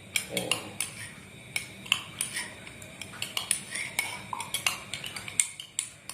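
A spoon stirring lime juice and sweet soy sauce, clinking repeatedly and irregularly against the sides of its container.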